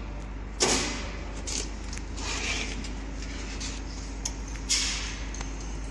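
A sharp clunk as the main power of a common rail diesel injection pump test bench is switched on, followed by a few softer knocks and rustles and a second clunk near the end.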